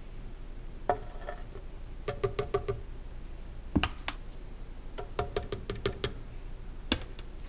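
Plastic measuring scoop tapped against the rim of a plastic blender jar to knock out protein powder: quick runs of light, ringing clicks. A duller knock comes about halfway through.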